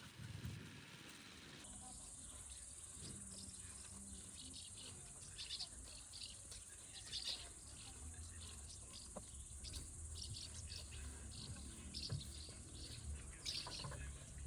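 Crickets chirring steadily in a high, even band, starting a couple of seconds in, with many short higher chirps scattered over it.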